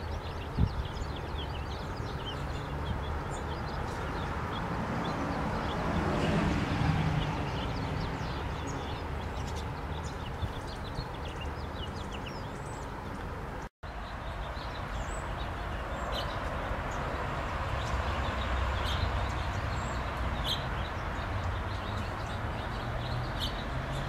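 Small finches, pine siskins and goldfinches, give many short, high, faint chirps and twitters over a steady low background rumble. The rumble swells about six seconds in.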